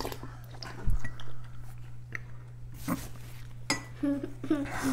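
Metal spoons clinking and scraping against ceramic soup bowls, with close-up sounds of borscht being sipped and chewed: a scatter of short clicks and knocks, and a thump about a second in. A brief voiced hum near the end.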